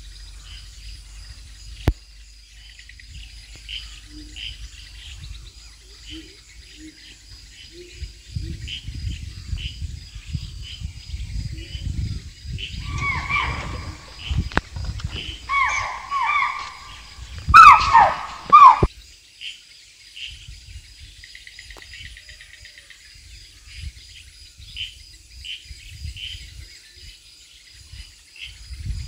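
Forest ambience: insects chirping in a steady repeating rhythm with high steady insect tones, and about halfway through a run of short, loud, pitched calls with gliding notes over low rustling, the loudest calls coming a little past the middle.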